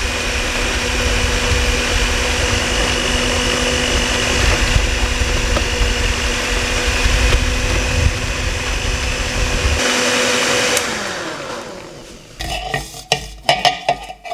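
Electric stand mixer with twin beaters running steadily through thick cake batter, a constant motor hum. About ten seconds in it is switched off and the motor winds down. Near the end come sharp knocks and clatter as a metal bundt pan is handled.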